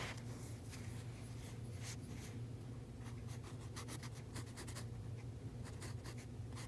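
Mechanical pencil scratching on sketchbook paper in many quick, short strokes, over a steady low hum.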